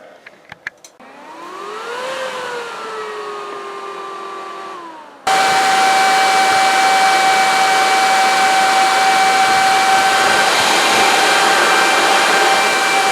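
A few clicks, then the Crown CDi1000 power amplifier's cooling fan spins up with a rising whine that settles. About five seconds in it jumps suddenly to full speed: a loud, steady whine over a rush of air, like a drone.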